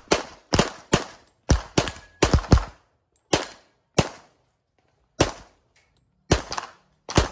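Handgun shots fired during a practical-shooting course of fire, about a dozen sharp reports in seven seconds. They come in quick pairs and short strings, with brief pauses between the groups.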